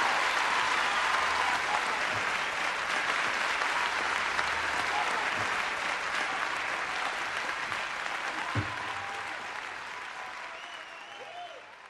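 Concert audience applauding at the end of a live song, the applause dying away over the last few seconds.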